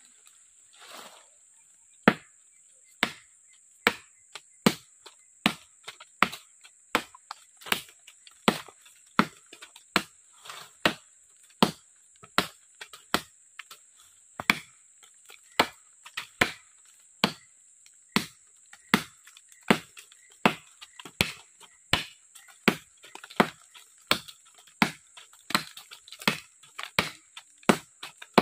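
Short, heavy parang (machete) chopping into the green wood of a weed tree's trunk: a long run of sharp, even blows about every three-quarters of a second, starting about two seconds in.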